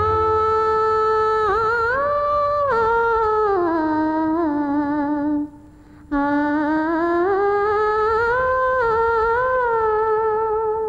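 A woman's voice humming a wordless melody, unaccompanied, in long held notes that slide and waver in pitch. Two phrases, with a short break for breath about halfway.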